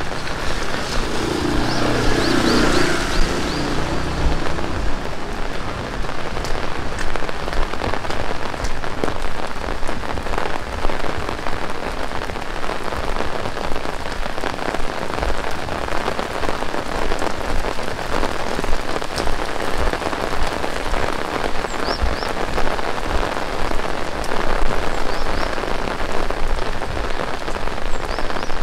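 Heavy rain falling steadily, pattering on the street and surfaces.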